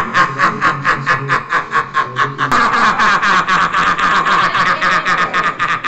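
A man laughing hard and without a break: a fast, even run of "ha-ha-ha" bursts, about six or seven a second.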